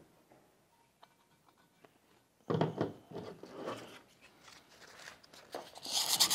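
A clatter of tool handling about two and a half seconds in, then near the end a rapid scraping starts, many strokes a second: old gasket remnants being scraped off the flange of the pump's volute.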